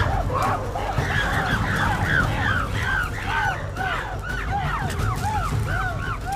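Many primates calling at once in the treetops: a fast stream of short, rising-and-falling cries overlapping one another, the calls of a chimpanzee hunt on colobus monkeys. A low rumble runs underneath.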